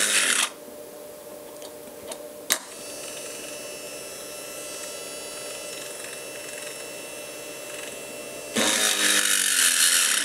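Mini drill press's small DC motor, overdriven from a bench supply at 12 volts, running steadily between cuts, with a sharp click about two and a half seconds in. From about eight and a half seconds the bit is fed into a metal plate and the drilling gets much louder, without bogging down.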